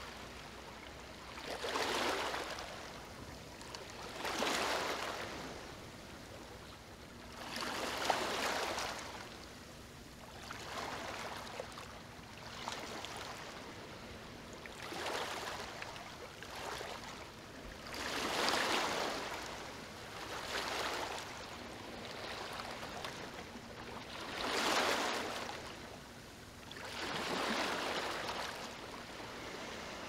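Small waves washing onto a shore, a swell of surf rising and falling every two to three seconds.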